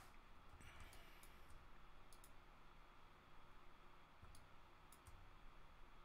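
Faint computer mouse clicks, a few scattered single clicks and a quick pair or two, over quiet room tone.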